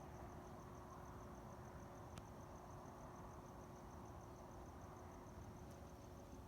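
Near silence at night, with a cricket chirping in rapid, even pulses over a faint steady hum; a single faint click about two seconds in.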